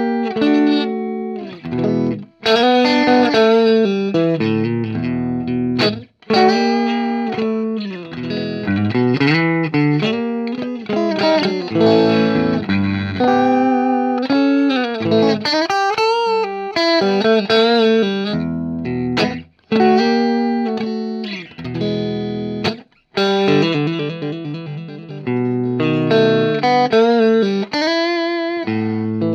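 Guitar played solo as a phrase of plucked notes and chords, with a few short breaks between phrases. It is recorded through a vintage RFT Gefell MV 201 stereo pair of tube microphones.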